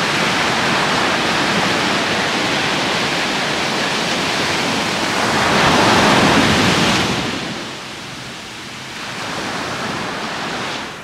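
Sea waves breaking and washing up a sandy beach. The rush of surf swells to its loudest about six seconds in as a wave breaks, falls away a second or so later, then a smaller wash comes in near the end.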